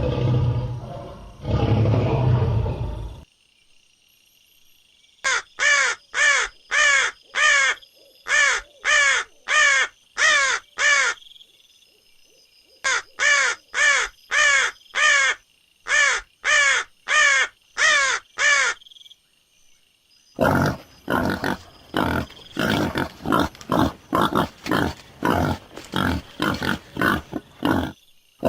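A series of different animal calls, one clip after another. First a low roar for about three seconds. After a pause, two runs of short, repeated calls at about two a second. Near the end, a faster, denser run of calls.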